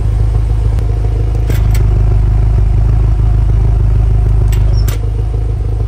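BMW F10 M5's twin-turbo V8 idling, heard at the quad exhaust tips. About a second and a half in the exhaust note steps up louder and deeper, and it drops back about five seconds in, as the exhaust valve flaps are switched open and then closed with the new valve controller.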